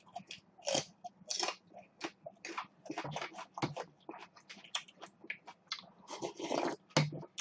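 Close-up chewing and crunching of crisp food in the mouth, a quick irregular run of short crunches, several a second.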